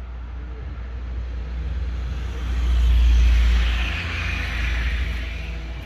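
A motor vehicle passing by: its noise swells over about two seconds, peaks, then fades away, over a steady low rumble.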